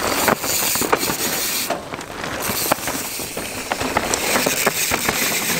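Mountain bike riding down a dirt trail: a steady rush of tyres over loose ground with a rapid rattle of clicks and knocks from the bike.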